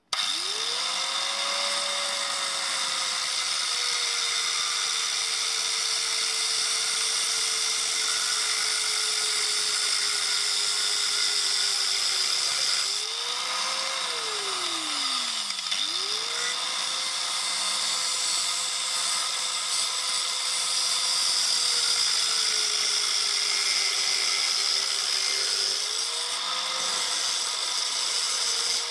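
Handheld power tool with a cutting disc cutting through a part: its motor runs up to speed and the pitch sags as it bites. It spins down about halfway, starts again and runs on until it winds down near the end.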